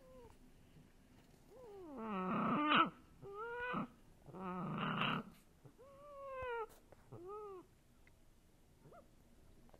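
A run of about five animal-like cries, each rising and falling in pitch. Two of them are longer and rougher than the rest.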